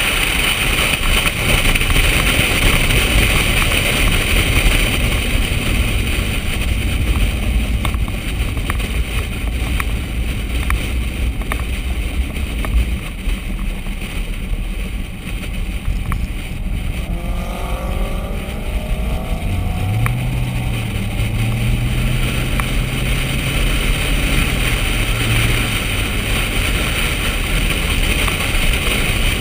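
Corvette driving at speed on a race track: steady wind and road rush over the low drone of its engine. A little past halfway the engine note rises briefly, then holds a steady low drone for several seconds.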